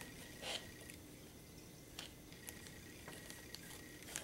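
Faint handling sounds of a balsa strip, hobby knife and plastic ruler on a paper plan: a few light clicks and rustles over a faint steady hum.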